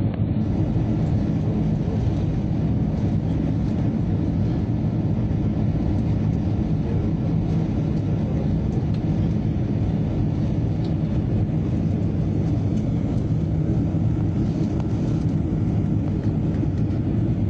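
Steady low drone of an airliner's engines and rushing air, heard from inside the passenger cabin.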